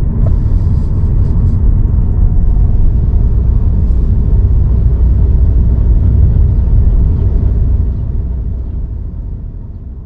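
Car driving along a paved road: a loud, steady low rumble of road and wind noise that fades away near the end.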